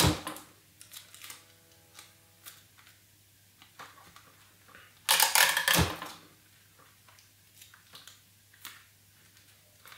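Sticky tape and cardboard being handled on a desk: a loud tearing rustle about five seconds in, with small taps and rubs between.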